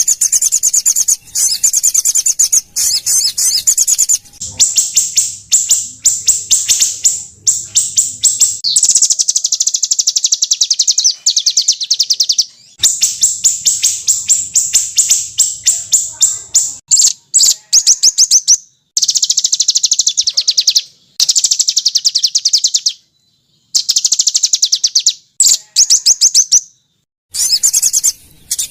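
Small songbirds giving loud, high-pitched, very rapid trills and rattling 'tembakan' runs of a few seconds each, with brief pauses between, from a 'burcil' masteran song mix.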